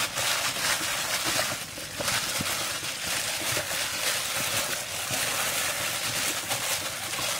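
Disposable plastic gloves crinkling and raw chicken skin squishing as hands knead seasoning into whole raw chickens in a metal bowl, many small rustles over a steady hiss.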